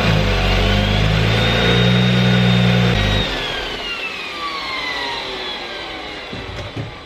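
BMW 335i engine revved with a rising turbo whistle. The throttle shuts suddenly about three seconds in, and a high turbo whistle falls slowly in pitch as the turbo spins down and the engine drops off.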